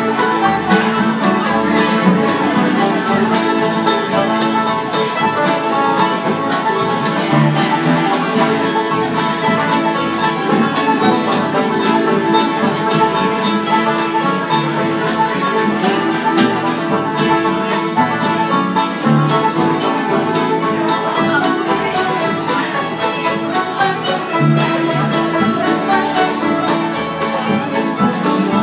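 Live acoustic string jam: several acoustic guitars strumming together with an upright bass and a fiddle, playing one tune continuously.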